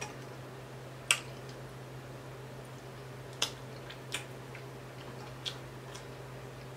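Quiet eating of fried tilapia by hand: a few scattered sharp clicks and smacks from fingernails and mouth as the fish is picked apart and eaten, over a steady low hum.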